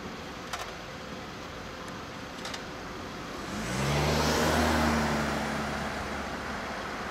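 An EF210 electric locomotive and an E231 series electric train approaching on parallel tracks. About three and a half seconds in, a rush of running noise rises together with a low, steady electric hum whose pitch first slides up a little. It is loudest soon after, then eases off.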